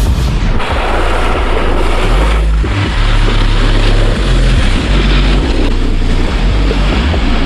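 Loud, rushing noise like wind buffeting the microphone, over background music with a low bass line that steps from note to note.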